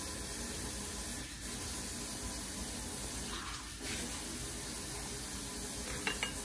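Steady water-like hiss, as of water running or being poured, with a brief louder hiss about three and a half seconds in and two light clicks near the end.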